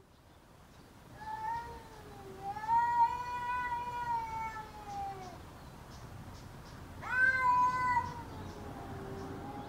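A cat meowing: one long drawn-out meow that rises and falls over about four seconds, then a second meow about seven seconds in that starts with a sharp rise and trails off lower.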